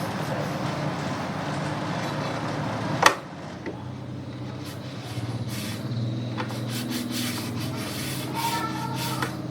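Motorbike washing: a hissing water spray over a steady machine hum cuts off with a sharp click about three seconds in. The hum runs on afterwards, with scattered small clicks and knocks.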